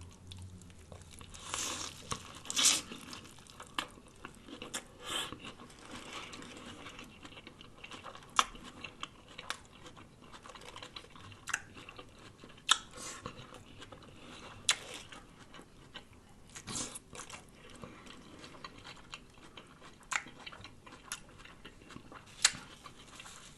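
Close-up chewing and biting of a lettuce-wrapped sub sandwich, with scattered sharp crunches between softer mouth sounds.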